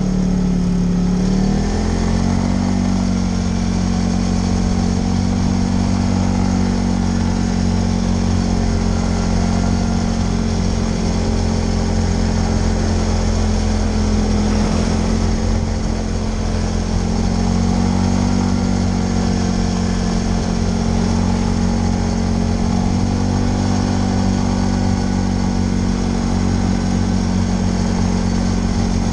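TGB Blade 550 4x4 ATV's single-cylinder four-stroke engine running under way at a steady cruise. Its pitch steps up about two seconds in, then eases off and picks up again a few times.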